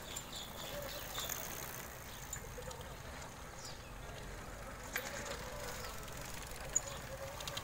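Mountain bikes rolling past on a dirt road: low tyre noise on the dirt with scattered small clicks from the bikes.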